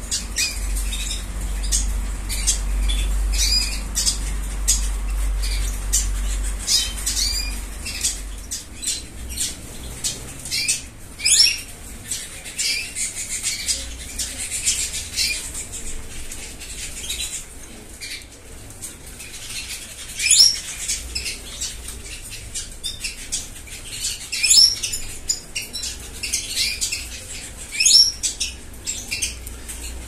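Small caged finches in an aviary calling with many short high chirps and a few louder sharp calls, with wings fluttering in the cages.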